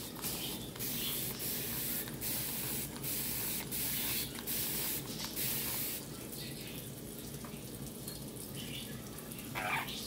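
Kitchen tap running a steady stream into a stainless steel sink while a wet superb parrot bathes and splashes in it, the hiss of the water broken now and then as the bird flaps and shakes its feathers.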